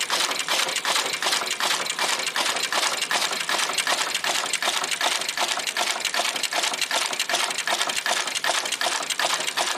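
An auto insertion machine for through-hole PCB components running at speed: a steady stream of rapid mechanical clicks, several strokes a second, as it cuts, bends and inserts component leads.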